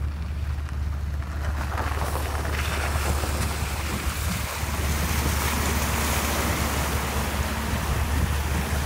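Rushing floodwater: a steady noisy rush that grows fuller and brighter about two seconds in, over a constant low hum.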